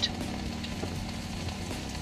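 Diced vegetables (eggplant, mushrooms, zucchini, capsicum) sizzling in olive oil in a frying pan, with a soft, even crackle and small pops.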